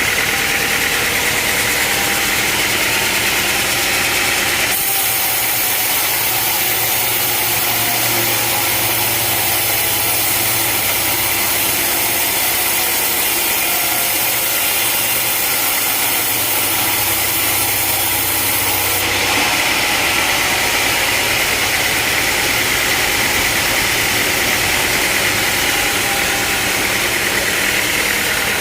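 Sawmill machinery running steadily, an engine-driven hum with a hiss over it. The sound changes abruptly about five seconds in, with more hiss, and switches back about two-thirds of the way through.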